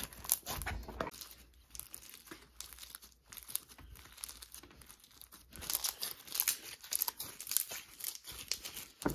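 Crunchy textured slime being stretched and squeezed by hand, giving off dense crackling and popping as its bubbles burst. The crunches come thickest near the end.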